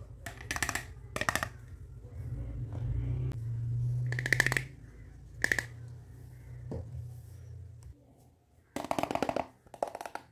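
Small plastic toy cookware clacking and rattling as the pieces are picked up and handled, in several short bursts of light knocks. A low rumble runs underneath and stops about eight seconds in.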